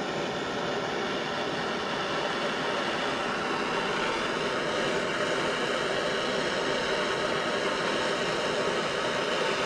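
Steady, even rushing hiss of a propane-fired burner running without a break.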